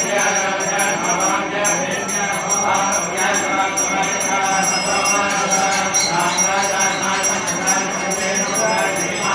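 A group of voices chanting together in unison, with small bells ringing rapidly and continuously over the chant.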